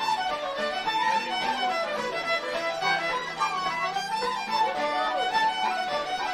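Background music: a violin melody with vibrato over sustained lower notes.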